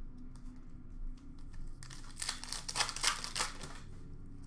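Plastic wrapper of a hockey card pack being torn and crinkled, a burst of crackling about two seconds in that lasts a second and a half.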